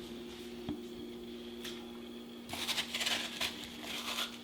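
Kitchen handling sounds: a single click, then a quick run of scrapes and taps about two and a half seconds in, over a steady low hum.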